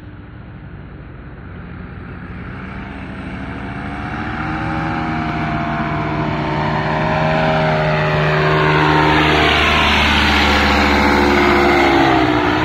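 Paramotor engine and propeller running steadily, growing louder as it flies in low toward the listener, its pitch bending near the end as it comes overhead.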